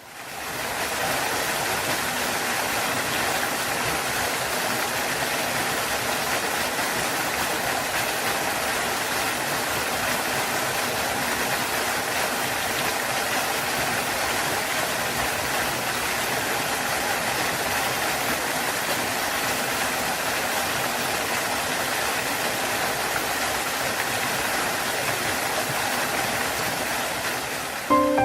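Waterfall rushing steadily, an even roar of falling water that fades in at the start.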